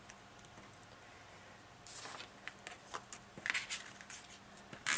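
Cardstock layers being handled and an adhesive tape runner pressed and rolled across the paper: a run of light clicks and short scrapes starting about two seconds in.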